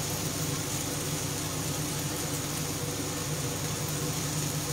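Diced vegetables sautéing in a frying pan over a gas flame: a steady sizzle over a constant low hum.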